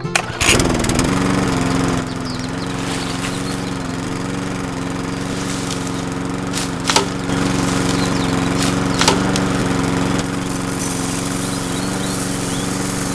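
Small electric motor driving a miniature wheat thresher's spiked drum through a belt and pulley: it starts up with a sudden hum that settles to a steady pitch within about a second, then runs evenly, with two sharp clicks in the second half.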